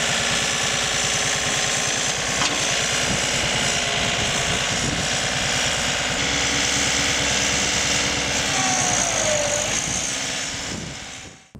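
John Deere 3520 compact tractor's diesel engine running steadily, with a short falling whine about nine seconds in; the sound fades out near the end.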